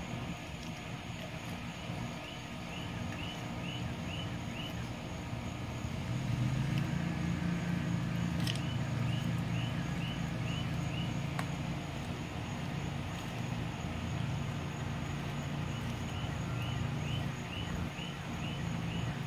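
A steady low engine-like drone, like a motor vehicle running, that grows louder about six seconds in and keeps going. Over it, three short runs of quick high chirps, each run about half a dozen chirps long.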